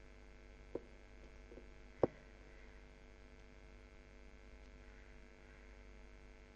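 Low steady electrical mains hum with many overtones, heard as the recording's background tone. Two faint short clicks come about a second apart near the start, the second sharper.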